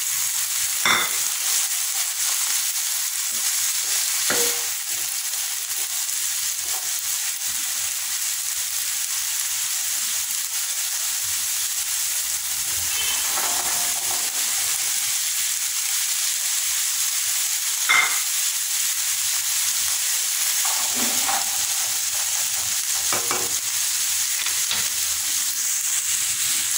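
Shredded cabbage and carrot strips sizzling steadily in oil in a non-stick frying pan as they are stir-fried, with a few sharp knocks of the spatula against the pan.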